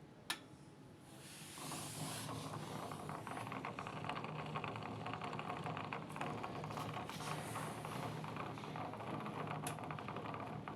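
A click, then about a second and a half in a Beko washing machine's drain pump starts and runs with a steady hum and a rapid rattle.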